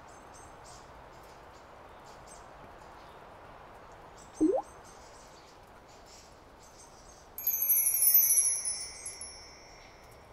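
Cartoon sound effects: faint twittering of birds, a single water-drop plink about halfway through, then a sparkling chime shimmer of several held high tones from about three quarters of the way in that fades out near the end.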